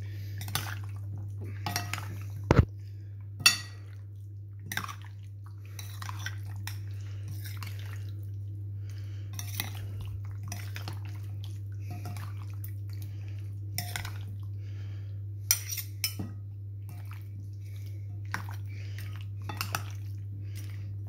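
Metal spoon stirring marinated chicken pieces in a glass bowl: irregular clinks and scrapes against the glass, the sharpest about two and a half and three and a half seconds in, with wet squishing of the yogurt marinade. A steady low hum runs underneath.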